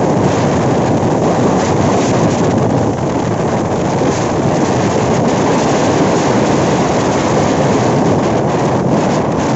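Cyclone-force wind blowing hard across the microphone, a loud, steady rushing noise, mixed with choppy storm-surge water churning along the bank.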